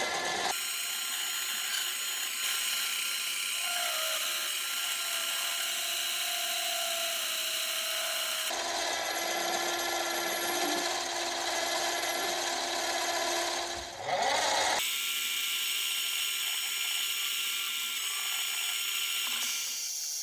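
Mini metal lathe running with a steady motor whine while turning aluminium, in several short clips that change sound abruptly. There is a rising whine about 14 s in.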